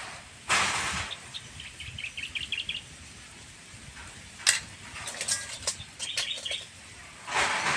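Small birds chirping in quick twittering runs, mixed with short scraping noises and clinks of shells being handled, and one sharp click about halfway through.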